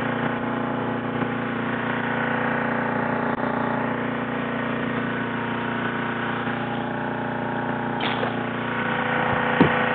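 Engine running steadily, a constant droning hum that holds one pitch throughout. A sharp click comes right at the end.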